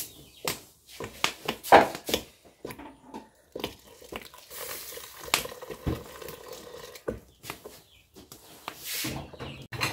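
Metal pots clanking and knocking as they are handled, loudest a little under two seconds in, then milk poured in a stream into a large pot of green-corn porridge, a short splashing pour about four to five seconds in.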